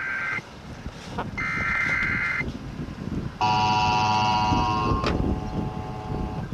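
Broadcast emergency alert tones from a radio: two one-second bursts of warbling data tones a second apart, then, about three seconds in, a loud, steady, shrill alert tone. This is the coded header and attention signal that open an Emergency Alert System or weather-radio warning.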